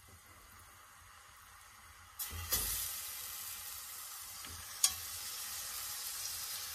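Split chicken laid into a hot pan of melted butter, olive oil and garlic: after about two seconds of quiet the pan starts sizzling suddenly and keeps frying steadily, with one sharp knock about five seconds in.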